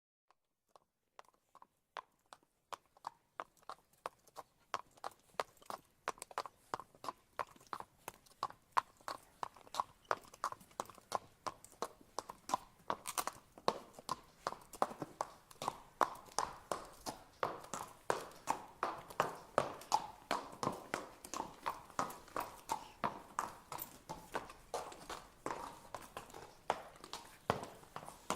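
Horse walking, its hooves clip-clopping in a steady rhythm of about two to three strikes a second, starting faint and growing louder over the first ten seconds or so.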